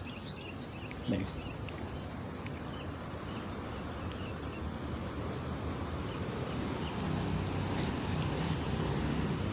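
Steady outdoor background noise with faint high chirps in the first few seconds, and a low hum that grows a little louder in the second half.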